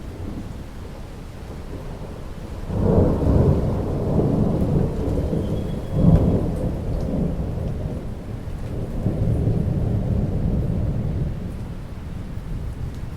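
Rain falling steadily, with a roll of thunder that breaks about three seconds in, swells again a few seconds later, then rumbles away.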